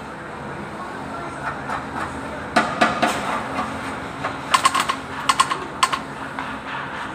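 Sharp metallic clinks and taps in a few quick clusters, like tools on metal, over a steady low hum.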